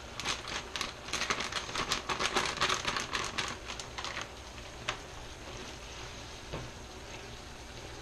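Cauliflower rice tipped into a hot non-stick frying pan of stir-fry: a dense run of pattering clicks and crackles for about four seconds, then a steady low sizzle with a couple of single taps.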